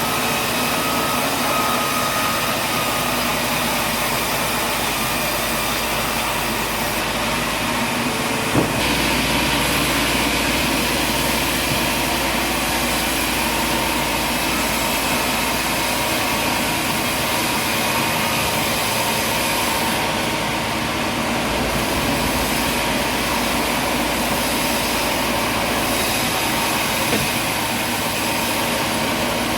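Steady drone of running machinery, with a single sharp click about eight and a half seconds in where the sound changes.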